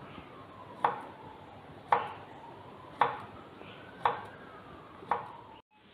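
Kitchen knife cutting thin slices from a raw Nendran plantain on a wooden cutting board: five sharp chops at a steady pace of about one a second, each one the blade meeting the board.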